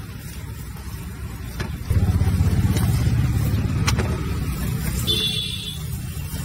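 A motor vehicle's engine running close by, a low pulsing rumble that gets suddenly louder about two seconds in and then slowly fades.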